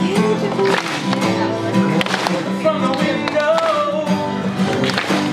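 An acoustic guitar and a hollow-body electric guitar playing together, with a man's voice coming in singing about halfway through.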